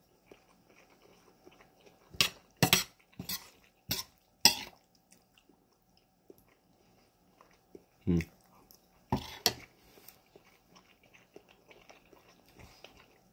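Eating sounds of a person spooning food from a metal bowl and chewing: a handful of short, sharp clicks and scrapes in two clusters, about two to five seconds in and again around eight to nine and a half seconds in.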